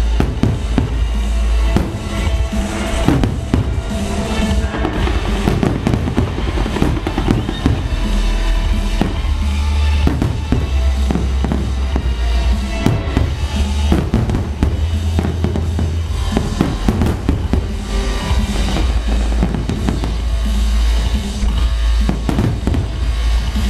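Aerial firework shells bursting one after another in a rapid, continuous barrage, over loud music with drums and deep bass.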